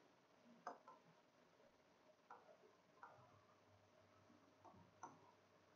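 Near silence broken by about five faint, short taps and scrapes of a pen on an interactive whiteboard's screen during writing.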